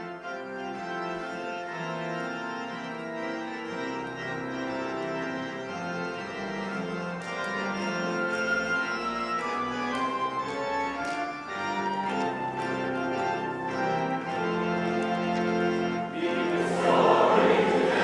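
An organ plays a slow introduction in held chords with a moving melody. About sixteen seconds in, a choir joins and the singing grows louder.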